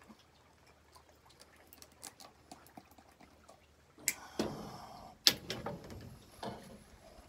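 Handling noise close to the microphone: scattered faint clicks, then cloth rustling and brushing with sharp knocks about four and five seconds in, and a smaller rustle near the end.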